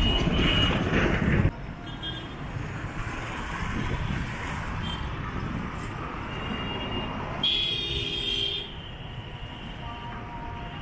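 Busy street traffic, with motorbikes and cars passing on the road. It starts loud for about a second and a half, then drops off suddenly to a steady hum. A vehicle horn sounds for about a second around seven and a half seconds in.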